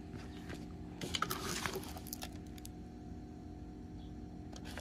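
Handling noise from a diamond-painting canvas and its clear plastic protective film: a cluster of light clicks and crinkles about a second in and a couple more near the end, over a faint steady hum.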